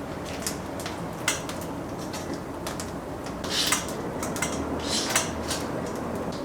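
Clicks and clatter of kitchen utensils and dishes over a steady low background noise, with two louder brushy, scraping bursts about three and a half and five seconds in.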